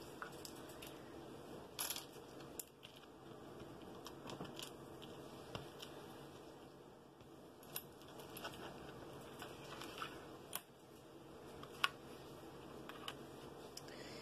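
Small craft gems clicking and tapping as they are handled and laid out on a paper plate; scattered light clicks, the sharpest near the end.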